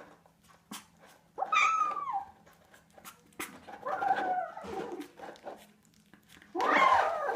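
A pet animal giving several drawn-out, whiny calls about a second long each, several falling in pitch, with short pauses between.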